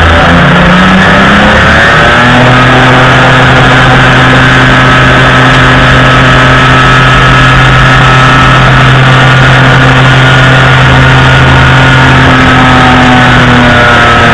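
Just 103 ultralight's Polini Thor 250 two-stroke engine and propeller at takeoff power, very loud and close to an onboard camera: the engine revs up over the first couple of seconds, then holds a steady pitch, with a slight pitch change near the end.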